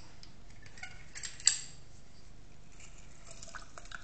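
Metal hand lime squeezer clinking and clicking against a stainless steel cocktail shaker tin. One sharp, loud clink comes about one and a half seconds in, with a few lighter clicks near the end.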